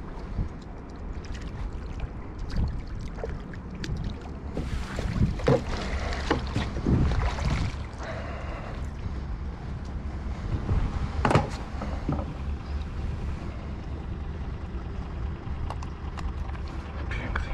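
A steady low motor hum, with scattered knocks and clicks and a louder stretch of rustling and clattering a few seconds in.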